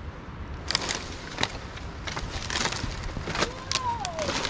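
Footsteps crunching and snapping through dry sticks and flood debris, a run of irregular sharp cracks over a steady low rumble. A faint falling tone sounds briefly about four seconds in.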